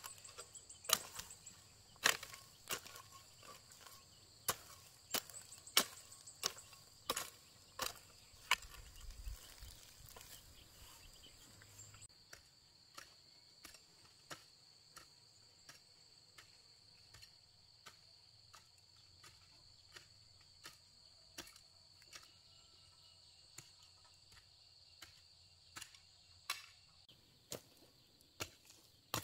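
Garden hoe blade striking and chopping into dry soil and weed roots, a regular run of sharp strikes about one and a half a second, growing sparser and fainter after about twelve seconds and louder again near the end.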